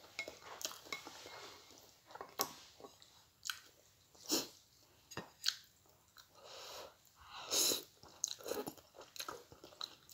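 Close-up eating sounds of a person chewing Korean spicy seafood noodles (jjamppong), with scattered short wet mouth noises and one longer, louder slurp of noodles a little past halfway.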